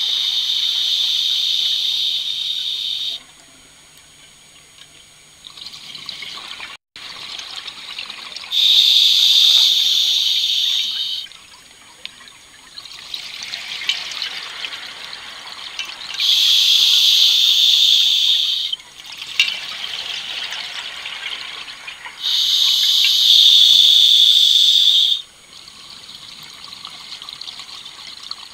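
A scuba diver breathing through a regulator underwater, heard through the camera's housing: four loud hissing breaths about three seconds long, roughly seven seconds apart, with softer bubbling between them.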